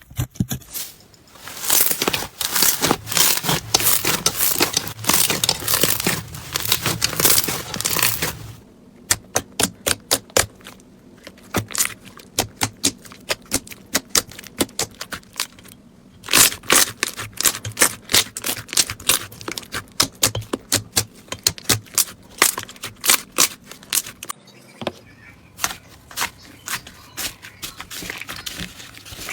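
Slime being squeezed and poked by hand, giving crisp crackling and popping clicks. The crackle is dense for the first eight seconds or so, then breaks into many separate clicks and pops.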